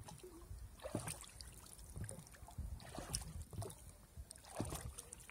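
Faint water lapping: soft, irregular small splashes every half second to a second over a low rumble.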